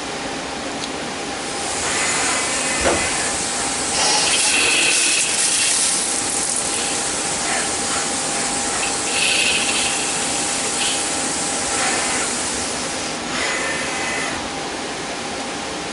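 CNC lathe machining the end of a thin-wall steel tube: a steady machine hum, with a loud hiss of coolant spray that starts a couple of seconds in and stops a few seconds before the end. Through the spray come short squealing stretches of the tool cutting, and one sharp knock near the start.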